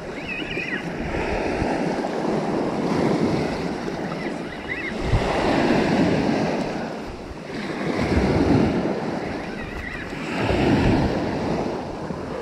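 Small waves breaking and washing up on a sandy beach, each wash swelling and fading every two to three seconds.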